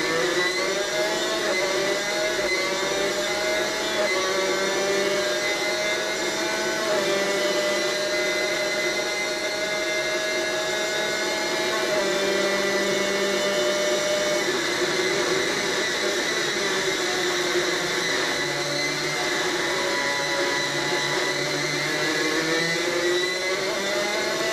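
Superkart's two-stroke racing engine running hard, heard onboard. The pitch holds fairly steady for long stretches with small dips, drops lower for a while in the latter part, then climbs in a rising sweep near the end as the kart accelerates.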